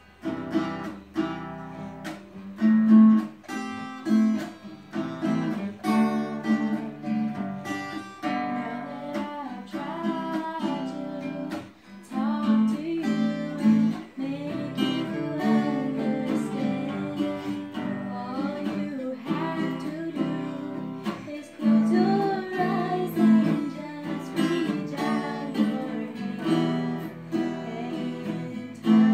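Two acoustic guitars playing a gentle song together, picked and strummed, with a young woman singing the melody over them.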